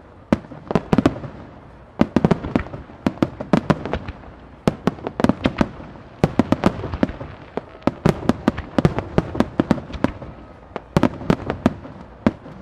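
Japanese starmine fireworks: aerial shells launching and bursting in rapid succession, a dense run of sharp bangs, several a second in clusters with brief lulls between.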